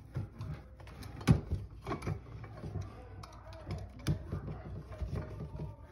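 A plastic wire nut being twisted onto a bundle of copper neutral wires in a metal electrical box: irregular small clicks, scrapes and knocks of hands, wires and box, the sharpest knock about a second in.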